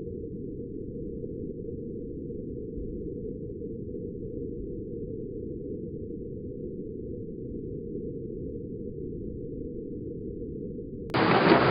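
Thunderstorm noise heavily muffled to a steady, dull low rush with all the treble gone. Near the end it switches suddenly to a much louder, fuller rush of rain and thunder.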